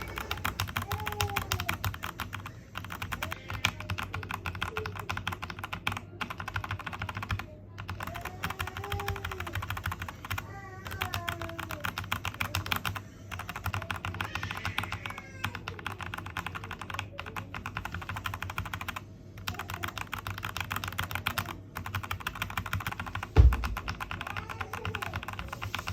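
Mechanical keyboard switches pressed in fast runs of clicks with short pauses between, comparing unlubed switches with switches lubricated with baby oil. There is one louder thump about 23 seconds in.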